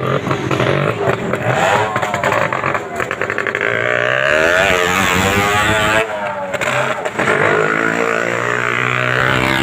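Motorcycle engines inside a wooden well-of-death drum. They rev up and down in pitch near the middle, then run at a steadier pitch near the end.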